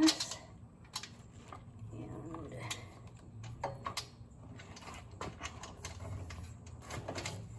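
Scattered small metal clicks and taps of hands fitting a generator wheel's axle and cotter pin, with a louder knock right at the start.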